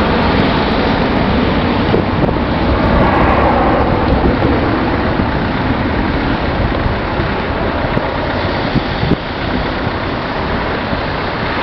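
Airbus A321 airliner's jet engines after takeoff: a steady, broad rumble that swells a little a few seconds in, then slowly eases off as the aircraft climbs away.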